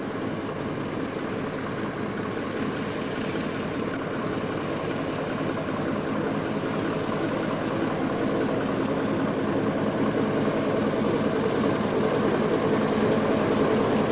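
Boeing Stearman biplane's radial engine running at low power as it taxis, growing steadily louder as it comes toward the microphone.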